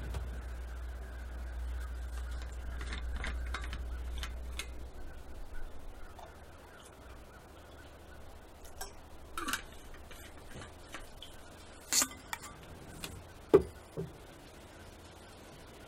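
Handling sounds as a cigarette is picked up and lit: scattered small clicks and rustles, with the sharpest clicks about twelve and thirteen and a half seconds in. A low rumble fades out in the first few seconds.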